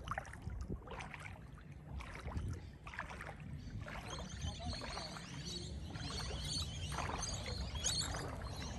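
Small waves lapping and splashing at a sandy shoreline around moored boats, over a low rumble of wind on the microphone. Short high chirps join in the second half.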